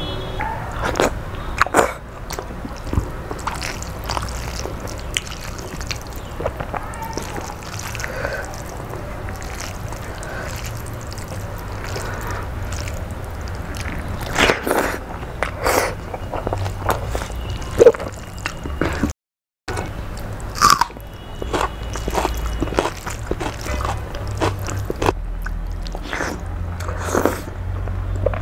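Close-up chewing of a person eating rice and noodles by hand, with frequent wet mouth smacks and sharp clicks. The sound cuts out for a moment about two-thirds of the way through.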